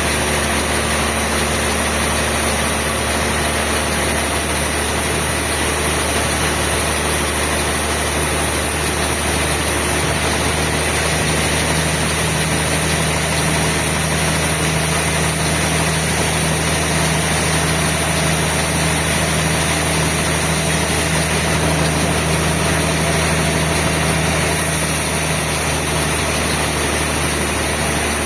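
Sawmill machinery running with a steady, loud mechanical drone and hum. A deeper tone joins in about a third of the way through and drops out near the end.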